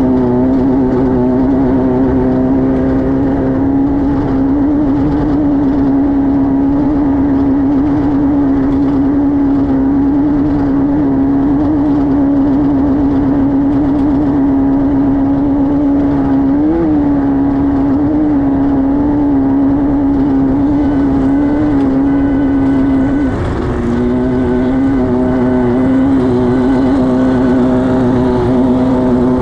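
Air-cooled Volkswagen flat-four engine of a Class 5-1600 off-road race car running hard at a nearly steady high pitch. The pitch jumps briefly about 17 seconds in, then drops with a dip in level about 23 seconds in before climbing back.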